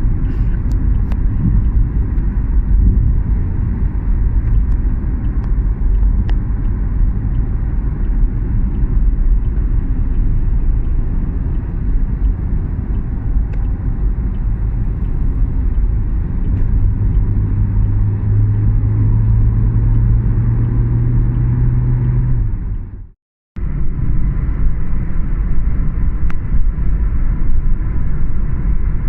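Steady low rumble of road traffic, with a vehicle's engine hum rising slightly about two-thirds of the way through. The sound drops out for a moment near the end and then resumes.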